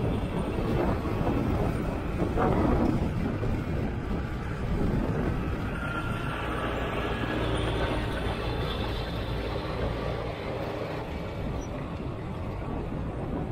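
Diesel engines of a Sumitomo 490 excavator and nearby heavy machinery running, with a rough rumbling clatter of soil and rock in the first few seconds as the bucket empties into a dump truck. It then settles into a steadier engine drone with a faint rising hydraulic whine as the excavator swings back and lowers its bucket into the pit.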